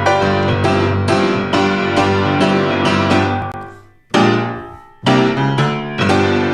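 Piano playing a steady run of notes that slows and fades out about four seconds in, then two separate chords about a second apart, after which the playing picks up again.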